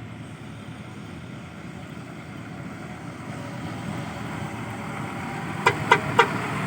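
A heavy diesel engine running steadily and growing louder, with three short, sharp beeps in quick succession near the end.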